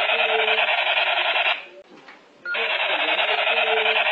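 Battery-powered toy pistol's electronic firing sound: a rapid rattling buzz that cuts off about a second and a half in and starts again about a second later.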